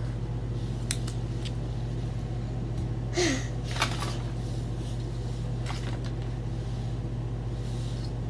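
Toys being handled during pretend cleaning: a few light clicks and scrapes over a steady low hum.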